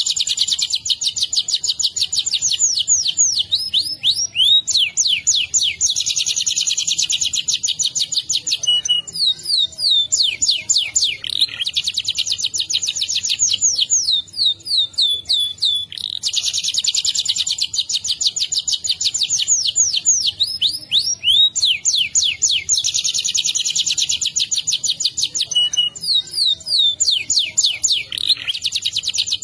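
Domestic canary singing a long rolling song: fast trills of rapidly repeated notes, one trill running into the next with barely a break.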